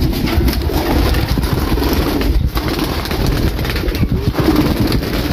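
Domestic pigeons cooing: several soft, wavering coos overlapping over a steady low rumble.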